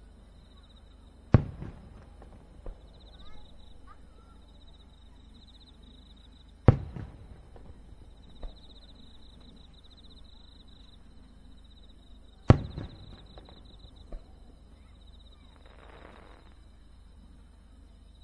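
Aerial firework shells bursting: three single loud bangs about five to six seconds apart, each with a decaying rumble. A fainter pop follows each bang about a second and a half later.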